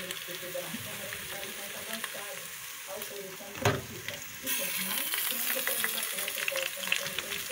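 Sliced sausage and calabresa sizzling and crackling in a pot, with stirring. A single sharp knock comes about three and a half seconds in. Soon after, the sizzle turns louder and hissier as drained pasta is tipped in from a colander onto the hot meat.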